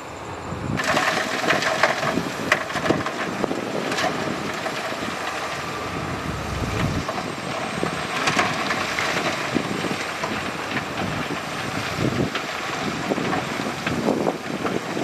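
Heavy earthmoving equipment handling rock: a dense crunching and clattering of stone over machine noise, starting abruptly about a second in.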